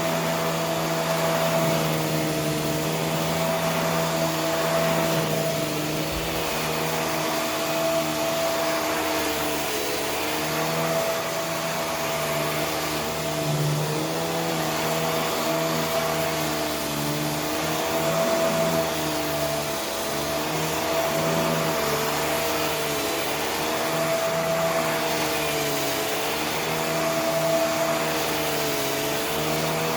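Vacuum cleaner running steadily, its motor pitch dipping and recovering in slow cycles every few seconds as it is pushed back and forth over a surface, over a constant rush of air.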